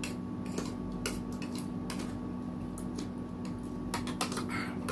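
Metal spoons clinking and scraping against a ceramic soup bowl and plates, a scatter of sharp taps with a cluster of them near the end.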